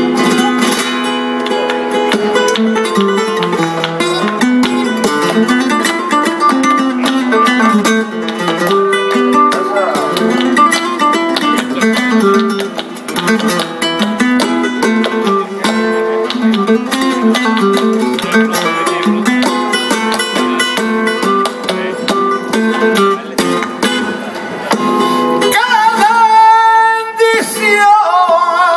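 Flamenco acoustic guitar playing soleá apolá, with hand clapping (palmas) marking the rhythm. A male flamenco singer's voice comes in near the end.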